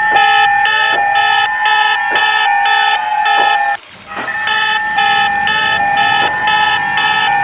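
Electronic emergency-alert alarm: two steady high tones under a beeping pattern of about two beeps a second, with short rising sweeps. It breaks off briefly about four seconds in and then starts again.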